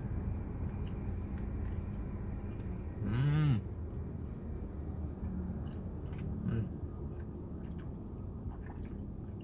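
A man chewing a mouthful of bread with his lips closed, giving one short hummed "mmm" that rises and falls about three seconds in, over a steady low hum inside a car.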